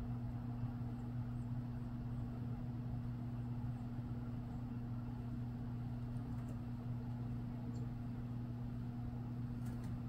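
Steady low mechanical hum, with a few faint tiny high ticks scattered through it.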